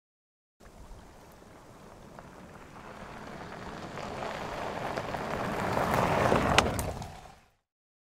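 SUV driving on a gravel track: tyre crunch over loose stones and engine rumble, growing steadily louder over about six seconds as it comes closer, with a sharp tick near the peak, then fading out quickly.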